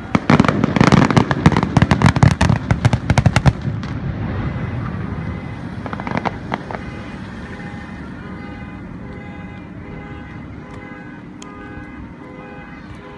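Aerial fireworks bursting: a rapid volley of loud bangs and crackling for the first three and a half seconds, fading into a rumble, then a few more cracks about six seconds in before it goes quieter.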